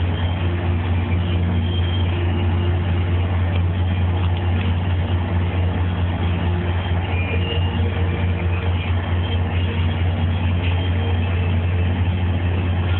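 Steady low drone of a large purse seiner's engines running at speed, with a constant rushing noise over it.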